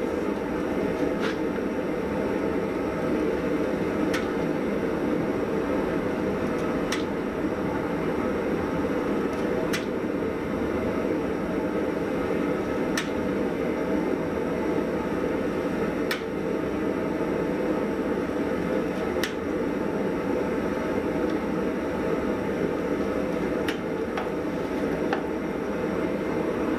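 Steady mechanical running noise of blacksmith-shop machinery, even and unchanging, with faint sharp ticks about every three seconds.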